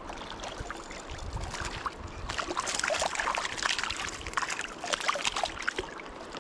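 Water splashing and sloshing in a shallow river over the steady flow of the current, getting busier and louder about two seconds in, as a small hooked trout is fought and brought to hand.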